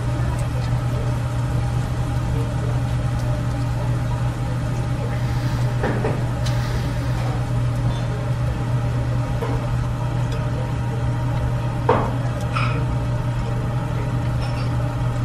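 Steady low hum of restaurant ventilation, with a couple of light clinks of utensils on dishes.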